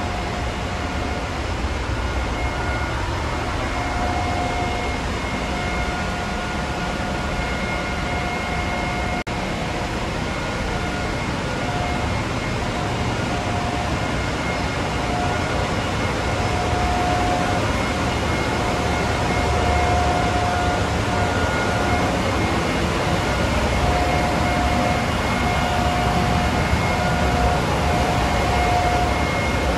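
Continuous machinery noise in a chemical tanker's engine room: a dense low hum and hiss with a pitched whine that swells and fades every few seconds, growing a little louder after about twenty seconds.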